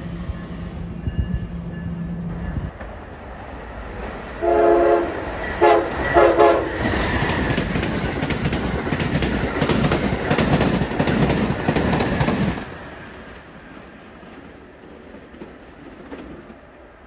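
An NJ Transit multilevel commuter train's steady hum stops a few seconds in. Then an Amtrak Acela high-speed train sounds three quick horn blasts and passes at speed, with a loud rush and rapid clicking of wheels over the rail joints for about five seconds before fading away.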